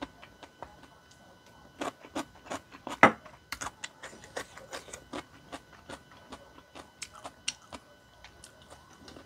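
Close-miked chewing and eating: many small wet mouth clicks and smacks as tteokbokki with enoki mushrooms is chewed, with one sharp click about three seconds in, the loudest sound.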